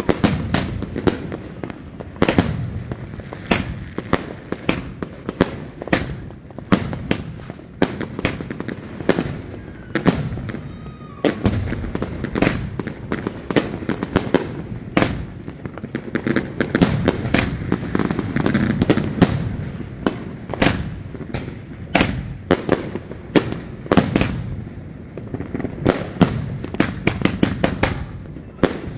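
Snow Blind 66-shot firework cake firing: an unbroken string of sharp bangs from tubes launching and shells bursting, several every second, crowding together near the end.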